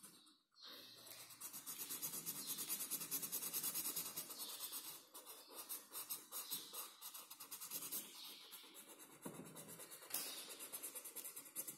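Felt-tip marker scribbling rapidly back and forth on paper, colouring in a shape, with a few brief pauses.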